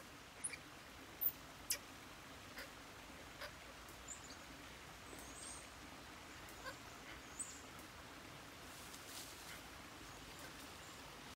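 Scattered short, high-pitched animal chirps and peeps, a dozen or so, the loudest in the first two seconds, over a faint steady outdoor background.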